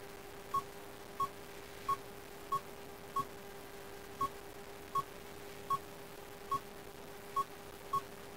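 Nokia 5800 XpressMusic touchscreen key tones: a short beep with each stylus tap on the full-screen QWERTY keyboard, eleven in all at an uneven typing pace of roughly one every two-thirds of a second. A steady low hum runs underneath.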